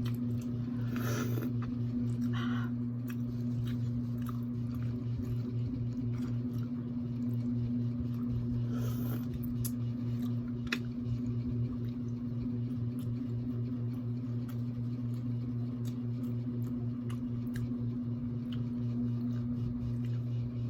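Person eating seafood up close: chewing and biting with small wet clicks, and a few short crackling sounds about a second in, at two and a half seconds and near nine seconds, over a steady low hum.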